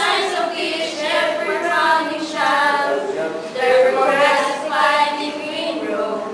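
A small group of women singing together without accompaniment, in phrases of held notes.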